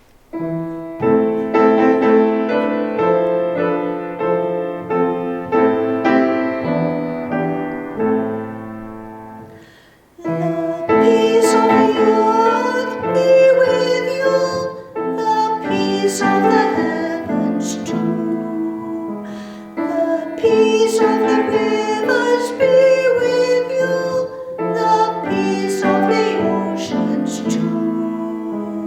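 Piano playing the closing hymn. After a short break about ten seconds in, the music comes back fuller, with a singing voice over the piano.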